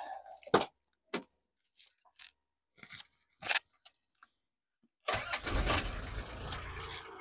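Clicks and knocks of a vehicle door and a bunch of keys jangling at the ignition, then, about five seconds in, an SUV's engine starting with a sudden low rumble and running on.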